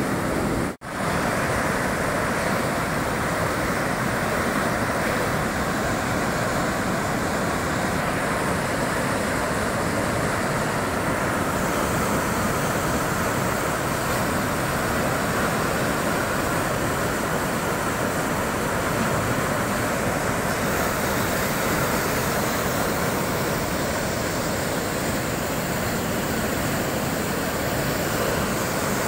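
Loud, steady rushing of fast-flowing floodwater, cutting out for an instant about a second in.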